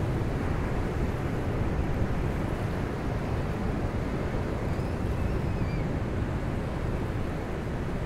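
Pacific Ocean surf breaking offshore and washing up a flat sandy beach: a steady rush of water, with a low rumble of wind on the microphone.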